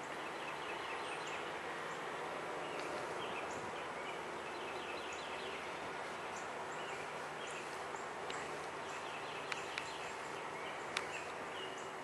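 Small woodland birds chirping and trilling, many short high calls over a steady background hiss, with three sharp clicks near the end.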